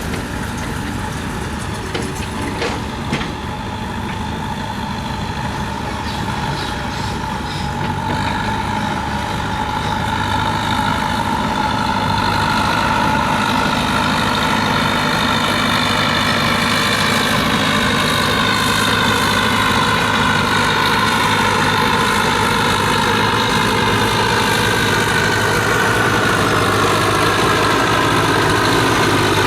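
Diesel engine of heavy earthmoving machinery running steadily, with a whine that slowly shifts in pitch and grows louder. A few sharp clicks come about two to three seconds in.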